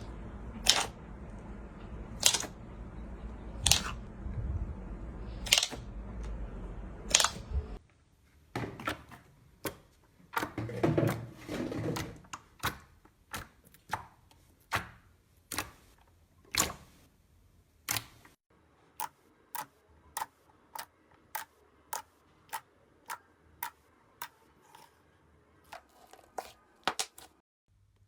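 Slime being poked and squeezed by hand: a series of sharp clicks and pops, with a denser crackle about eleven seconds in and quick regular clicks near the end. A low hum sits under the first third.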